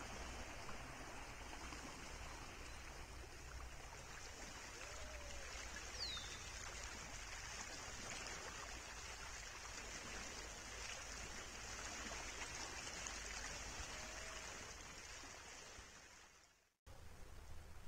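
Steady soft hiss of wind and rippling lake water, with a few faint, brief chirps, one a falling whistle about six seconds in. The hiss fades out shortly before the end.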